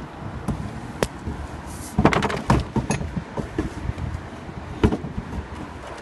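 Sharp clicks and knocks of a hand tool and metal fittings while the fuel filter under the car is being tightened. There are a few single clicks and a quick cluster of clicks about two seconds in.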